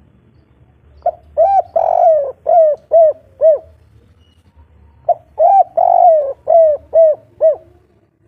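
Spotted dove cooing, two song phrases about four seconds apart. Each phrase has a short note, a longer drawn-out coo, then three short evenly spaced coos: the 'kuk 3' song type.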